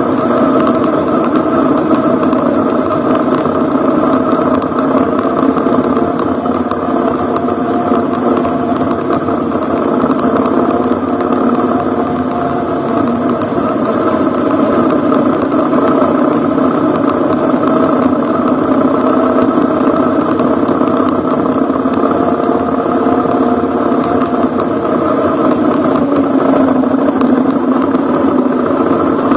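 Ducati Hypermotard's L-twin engine running at a steady, moderate speed on a dirt road, its pitch drifting gently as the throttle is eased on and off. Light ticks and rattles from the rough surface run through it.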